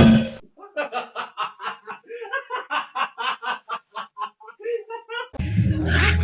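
A person laughing in a long run of short, quick "ha" bursts, a few a second; near the end a louder burst of laughter joins over music.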